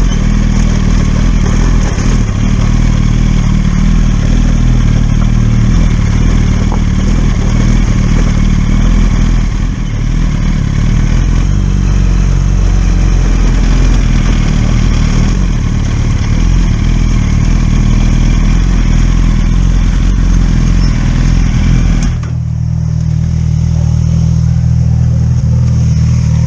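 Motorcycle engine running during a ride, loud and continuous, with a rushing noise over it. About 22 seconds in the rushing noise drops away as the bike slows, leaving a steady engine tone.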